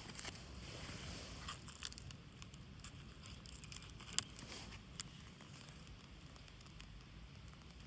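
Dry birch bark crinkling and being scraped, with a few short, sharp scrapes standing out, the sharpest about four seconds in.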